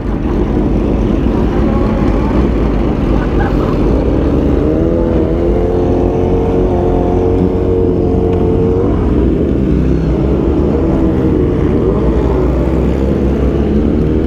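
Motorcycle engines running loud through free-flowing aftermarket exhausts over a steady low rumble. One engine's note rises about four to five seconds in, holds, and drops away near nine seconds, then swells and falls once more near the end.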